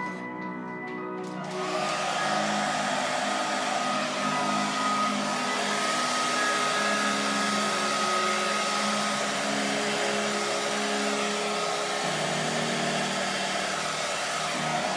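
Hair dryer switched on about a second and a half in and running steadily, blowing air across wet acrylic pour paint.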